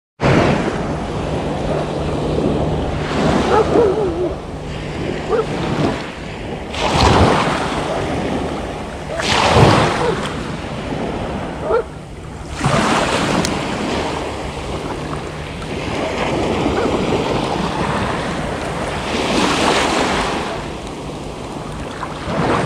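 Small waves washing up a pebble beach and draining back over the stones, swelling and fading every few seconds, with wind rumbling on the microphone.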